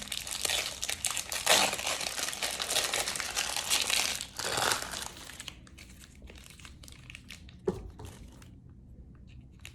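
Takeout food wrapping crinkling and rustling as an egg roll is unwrapped, dense for about the first five seconds, then a few scattered rustles and a single short knock near eight seconds.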